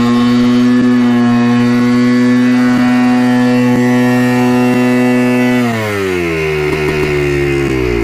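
1987 Yamaha YZ490's two-stroke single-cylinder engine hanging at high revs with the throttle off, holding a steady high pitch, then dropping sharply about two-thirds of the way in to a lower speed. The rider suspects an air leak behind the runaway revs.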